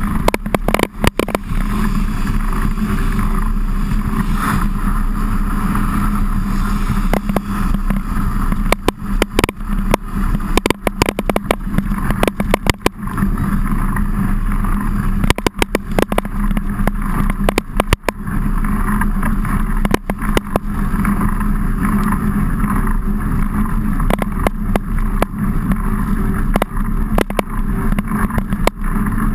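Mountain bike ridden over a wet trail, heard through a camera mounted on the bike: a steady rumble and hiss of tyres and rain, with frequent sharp knocks and rattles as the bike jolts over bumps.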